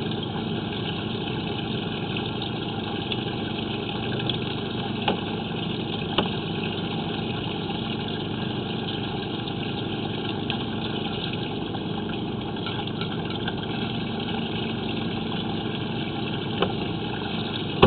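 An engine idling steadily, with a few sharp clicks about five, six and seventeen seconds in.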